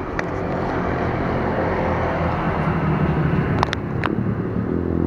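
Road traffic passing close by: motorbike and car engines swelling and fading, loudest about three seconds in. Two light clicks come near the four-second mark.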